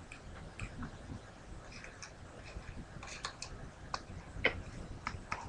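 Faint, irregular light clicks and taps of a toothpick stirring and scraping a cream mixture in a small container.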